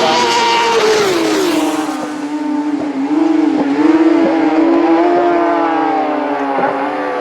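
Racing motorcycle passing at speed on a road course. Its engine note drops in pitch as it goes by about a second in, then holds on with small wavering rises and dips in pitch.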